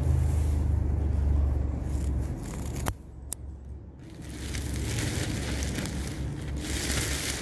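Rustling and tearing of ornamental grass blades being worked by hand. A low rumble in the first two seconds or so, and a single sharp click near three seconds in.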